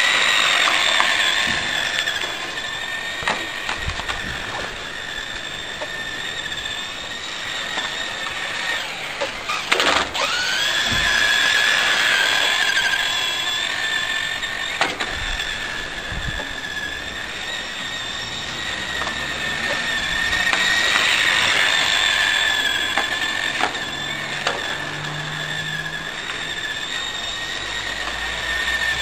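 RC car's motor and gears whining steadily at a high pitch, swelling louder and fainter. About ten seconds in the pitch drops sharply and then climbs back, and there are a few clicks and knocks.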